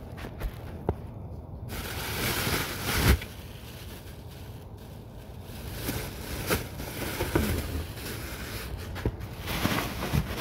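Handling noises: rustling with a few sharp knocks and clicks, the loudest about three seconds in.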